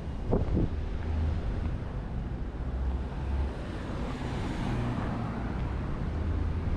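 City street traffic: vehicle engines running, with a car passing by about four seconds in.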